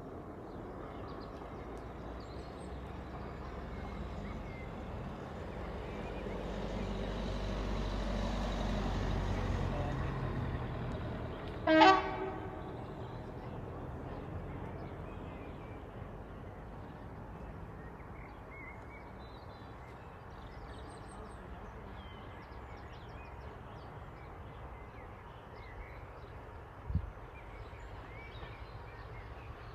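A diesel locomotive's engine rumble grows louder over several seconds and then fades as the locomotive passes. About twelve seconds in comes one short, loud toot on its horn. A brief low thump follows near the end.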